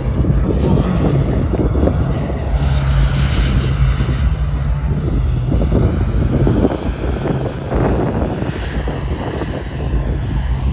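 JetCat P300 Pro turbine of a large RC model jet running steadily as the jet flies aerobatics, with a constant low hum underneath.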